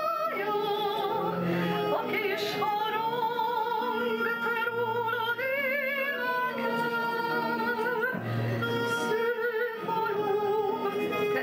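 A woman singing into a handheld microphone, holding long notes with a wide vibrato, over an amplified accompaniment with steady bass notes.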